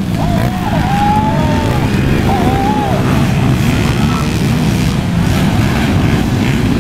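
Motocross dirt-bike engines running hard and revving, a loud continuous din whose pitch rises and falls as the bikes race over the track.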